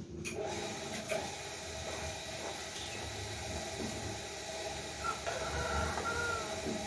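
Sizzling of food frying in hot oil, a steady hiss that starts suddenly right at the beginning.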